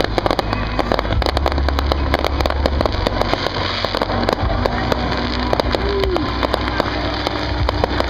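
Fireworks crackling and popping in a rapid, dense stream of small bangs, over a steady low rumble.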